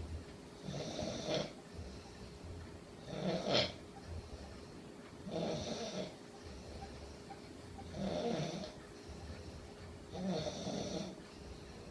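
A person snoring in their sleep: five snores in a steady rhythm, one on each breath about every two and a half seconds.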